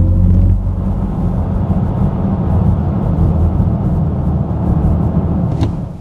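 Audi S6 e-tron Avant's electric motor whine, still rising from a hard acceleration, fades out about half a second in. It leaves a steady low rumble of tyre and road noise from the car's Nokian winter tyres. A short click comes near the end.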